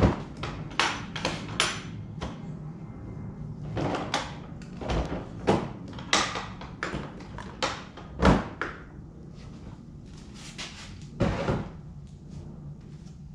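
Milwaukee Packout plastic toolbox being handled, a run of sharp clicks and knocks as its parts are worked, the loudest about eight seconds in.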